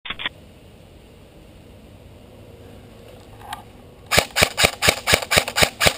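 Airsoft rifle firing a rapid string of about ten shots, roughly five a second, starting about four seconds in.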